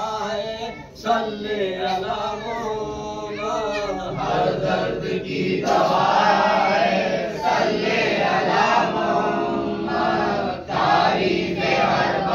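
Men's voices chanting: one voice leads for about the first four seconds, then many voices join in a dense group chant.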